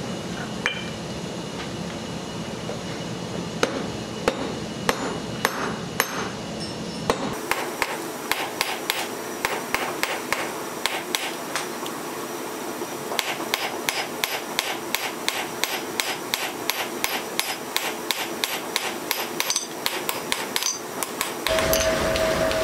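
Hand hammer forging a red-hot steel bar on an anvil: a few separate blows, then from about seven seconds in a quick, regular run of blows, about three or four a second. Music comes in near the end.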